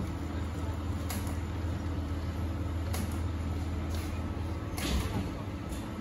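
Steady low mechanical hum with a few faint clicks.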